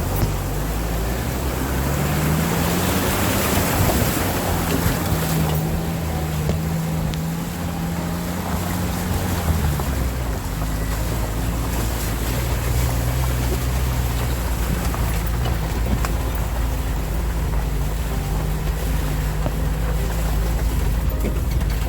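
Suzuki SJ410 engine driving through floodwater. It revs up in the first few seconds amid a rush of splashing water, holds the higher revs for several seconds, then settles to a steady, lower run.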